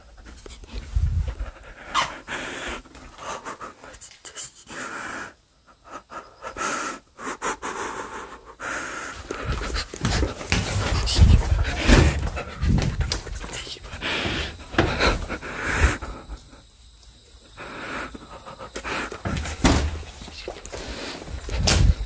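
Heavy, panting breaths close to the microphone, mixed with rustling, knocks and handling noise as the camera is carried and moved about.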